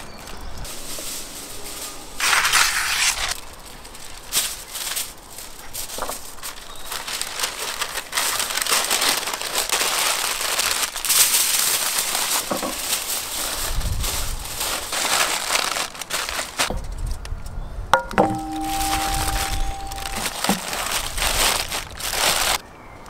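Aluminium foil crinkling and crumpling in irregular bursts as hands wrap it around food on a baking tray. About three-quarters of the way through comes a sharp clink with a short ringing tone, and the crinkling stops abruptly near the end.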